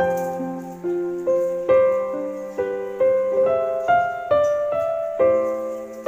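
Piano music: a slow melody of struck notes and chords, each note fading before the next is played.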